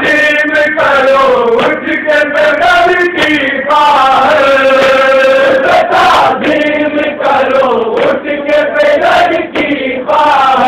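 A group of men chanting a Shia noha (a mourning lament) together, holding long notes, with regular slaps of hands beating on chests (matam).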